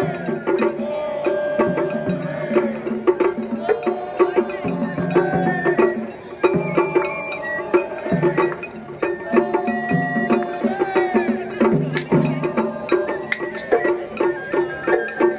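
Traditional Japanese festival music: a held melody stepping from note to note over quick, steady percussion with sharp wood-block-like clicks.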